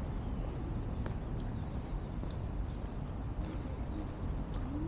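Small birds chirping here and there over a steady low rumble.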